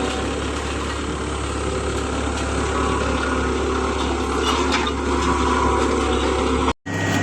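Engine of road-works machinery running steadily, with some clinks and scrapes over it. It cuts off abruptly near the end and gives way to a different steady engine hum.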